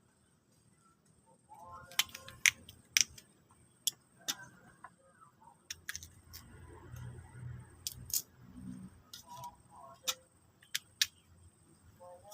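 A dozen or so sharp, separate clicks and light clinks at irregular intervals, with a few brief faint pitched sounds between them.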